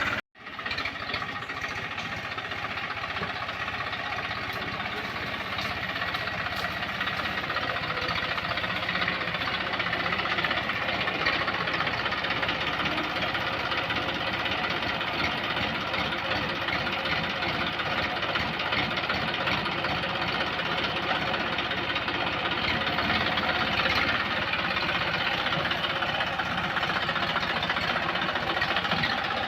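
Massey Ferguson 1035 tractor's diesel engine running steadily under load while pulling a disc plough through hard soil, after a brief break in the sound just after the start.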